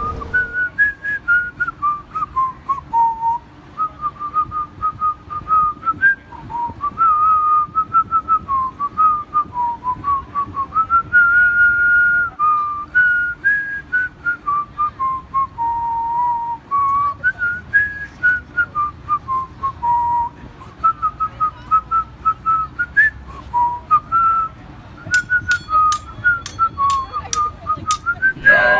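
A person whistling a tune, one clear melody of mostly short notes with a few longer held ones.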